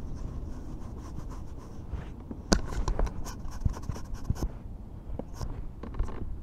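Close handling noise on the wet camera: a cluster of clicks, knocks and scratches about two and a half seconds in, lasting some two seconds, with a couple more near the end, over a low rumble.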